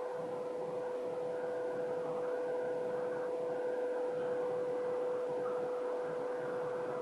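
A steady hum holding one pitch, with fainter higher tones and a light hiss under it.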